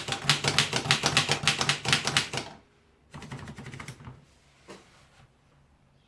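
Corona No. 3 three-bank folding portable typewriter being typed on: a fast run of sharp key strikes, about eight a second. The typing breaks off after two and a half seconds, then comes a softer run of strikes and a last lone click.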